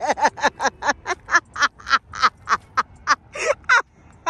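A rapid, rhythmic string of short quack-like vocal sounds, about four a second, each rising and falling in pitch.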